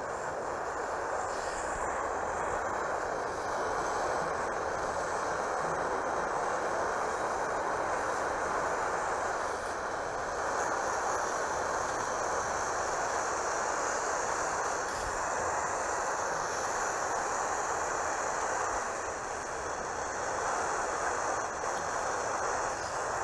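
Gas soldering iron's burner flame hissing steadily while it heats the copper bit soldering a copper gutter seam.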